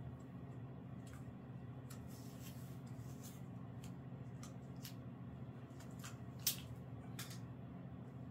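Quiet rustling and small clicks of hands handling bandaging materials, with one sharp click about six and a half seconds in, over a steady low hum.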